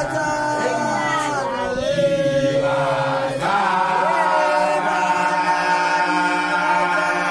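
Chanted vocal music: voices hold long, drawn-out notes, growing fuller and a little louder about halfway through.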